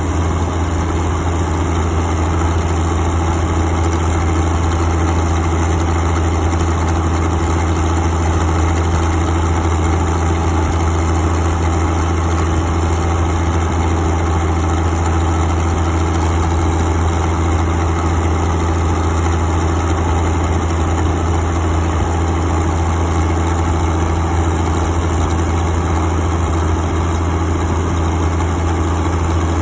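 Minneapolis-Moline GB diesel tractor engine running steadily while the tractor drives along, heard from the driver's seat.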